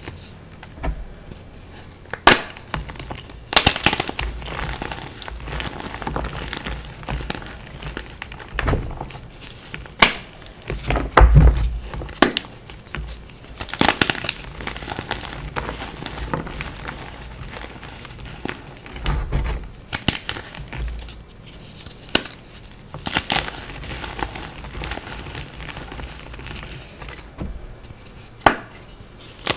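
Hands crushing and crumbling blocks of dyed gym chalk: soft, gritty crunching of powder broken by irregular sharp cracks as chunks snap apart.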